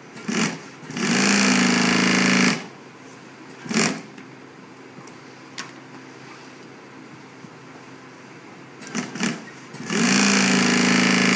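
Juki industrial sewing machine stitching pleated seat upholstery in bursts: a short burst, a steady run of about a second and a half, another short burst, then after a pause a couple of short bursts and another steady run near the end. A low steady hum lies under the pauses.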